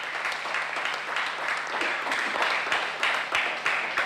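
A small group applauding: many hands clapping quickly and unevenly together.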